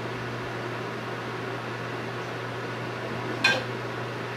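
A ceramic plate clinks once against the dish rack as it is lifted out, about three and a half seconds in, over a steady low room hum.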